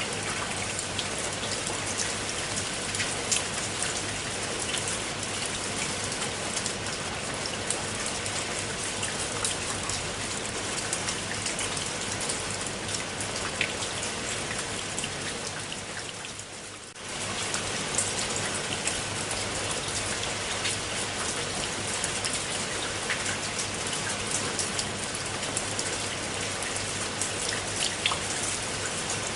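Rain falling onto a pool of water: a steady, dense patter of many small drops. A little past halfway it fades down briefly, then comes back suddenly at full strength.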